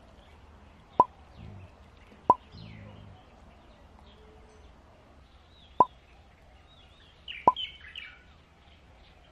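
Four short, sharp pop sound effects, unevenly spaced a second to three and a half seconds apart. Birds chirp faintly between them, mostly in the second half.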